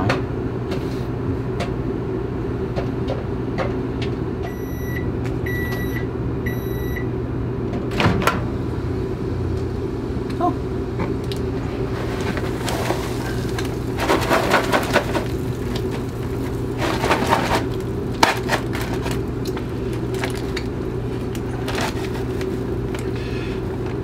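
Bagged microwave popcorn popping now and then in a running Contoure convection microwave over a steady hum, followed by three short beeps from the microwave about a second apart. Then a click as the door opens, and the paper popcorn bag crinkles as it is handled.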